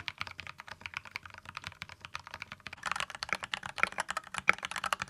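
Typing on an aluminum-cased mechanical keyboard weighted with a stainless steel back weight: a rapid run of keystroke clicks, growing louder and denser about three seconds in.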